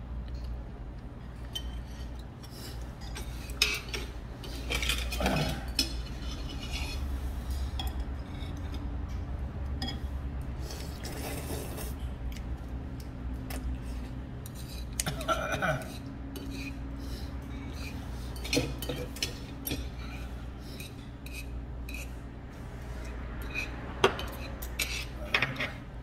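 Metal chopsticks clinking and scraping against a metal bowl while stirring and lifting noodles, with scattered sharp clicks over a steady low hum.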